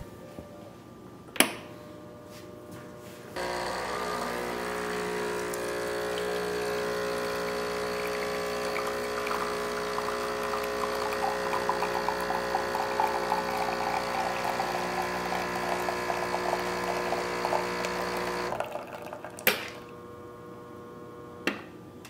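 Breville Barista Pro espresso machine's vibratory pump humming steadily for about fifteen seconds as it pulls an espresso shot, with espresso trickling into glass cups. A click comes shortly before the pump starts, and two more after it stops.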